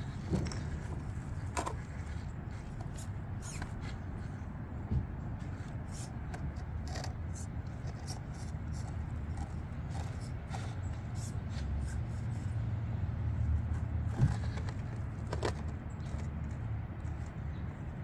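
A 1/18-scale RC rock crawler climbing over rocks: many light clicks and scrapes of its tyres and body on stone, with a few sharper knocks, over a steady low rumble.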